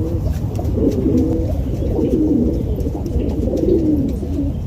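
Pigeons cooing: low, warbling coos repeating and overlapping, over a steady low rumble.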